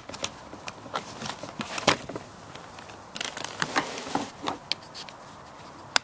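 Small metal clips being pushed and slid onto a plastic hitch cover with a thin screwdriver and fingers: an irregular scatter of short clicks and scrapes, the sharpest about two seconds in.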